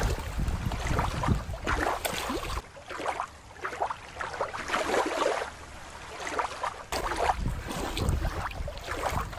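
Shallow water lapping at a rocky shore with wind buffeting the microphone, dropping quieter for a few seconds in the middle.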